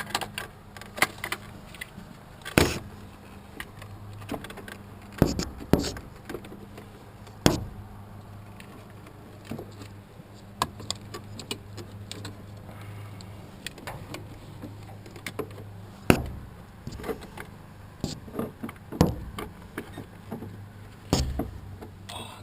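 Irregular metallic clinks, clicks and knocks of hand tools, a ratchet and sockets, being handled and worked against the engine, with a few louder clanks, over a steady low hum.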